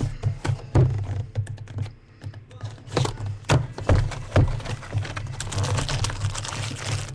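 Hands handling foil trading-card packs and their cardboard box close to the microphone: irregular clicks, taps and knocks, with a stretch of rustling near the end. A steady low hum runs underneath.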